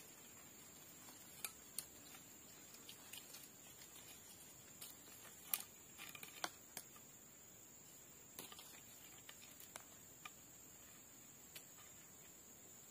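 Faint, scattered clicks and rustles of hands lashing a wooden pole to an upright post with a thin binding, the sharpest click about halfway through, over a steady high hiss.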